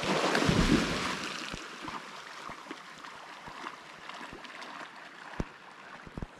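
A dog plunging into a lake with a loud splash about half a second in, then a lower, steady sound of water sloshing and splashing as it swims out.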